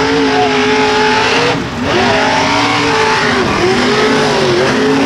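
Mega truck engine revving hard at high rpm, its pitch dropping sharply about a second and a half in and again near three and a half seconds, then climbing back each time as the throttle is worked. A dense hiss runs underneath.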